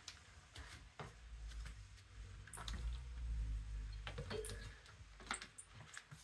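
Scattered light clicks and taps of a kitten batting a small toy across a vinyl floor, over a low rumble that swells in the middle and fades again.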